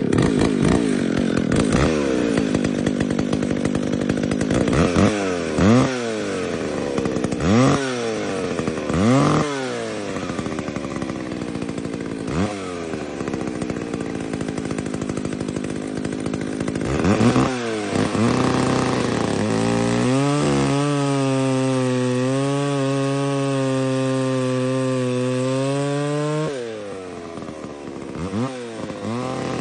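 Old 60cc McCulloch two-stroke chainsaw running just after starting, the throttle blipped repeatedly so the engine note rises and falls several times. From about two-thirds of the way in it holds one steady pitch, then drops to a lower, quieter note near the end with a few more short blips.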